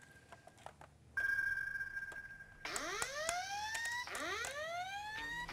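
Studio sound effect: a steady high beep, then a siren-like whoop rising in pitch again and again, about once every 1.3 seconds.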